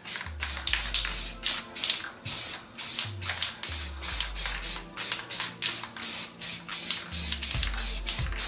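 Rust-Oleum aerosol spray-paint can hissing in quick short bursts, a few a second, as a brake caliper is painted. Background music with deep bass notes plays underneath.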